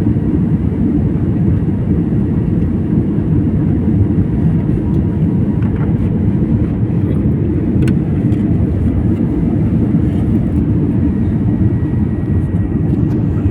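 Airliner cabin noise during takeoff: a steady low rumble of the jet engines and rushing air.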